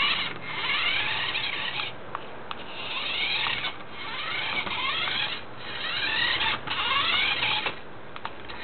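Small electric motor and gears of a cheap toy remote-control car whirring in about six short bursts of roughly a second each, rising and falling in pitch as the car is driven in short runs.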